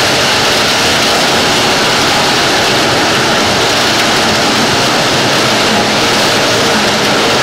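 Cameco two-row whole-stalk sugar cane harvester's diesel engine and machinery running steadily and loudly under load while cutting and gathering cane.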